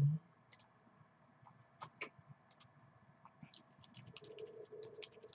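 Faint clicks of a computer mouse and keyboard: a few scattered single clicks, then a quicker run of keystrokes from about three and a half seconds in.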